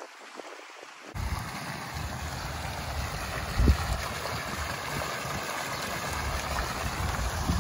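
Courtyard fountain's jets splashing steadily into a tiled basin, with gusts of wind buffeting the microphone. The sound starts abruptly about a second in.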